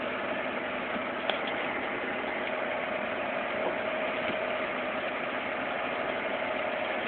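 Car driving at highway speed, heard from inside the cabin: steady road and engine noise with a constant hum, and a single light click about a second in.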